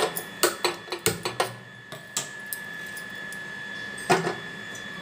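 Handheld gas-stove spark lighter clicking several times in the first couple of seconds as the burner is lit, then a single metallic clank about four seconds in as an aluminium kadhai is set down on the burner grate.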